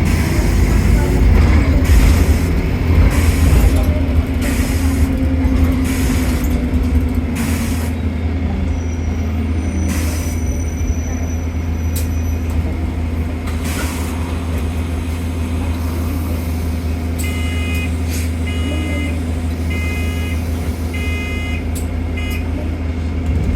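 A bus's engine running with a steady low drone, heard from inside the bus, with sharp rattles and knocks in the first several seconds. Near the end come five electronic beeps, about one a second.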